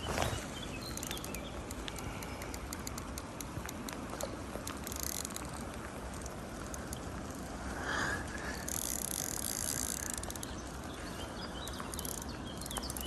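Fishing reel ticking irregularly as a hooked carp is played on a float rod, with outdoor background noise and stretches of high hiss.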